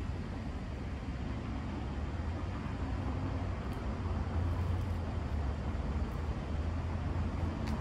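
Steady low rumble of street traffic, with a couple of faint clicks about four seconds in and near the end.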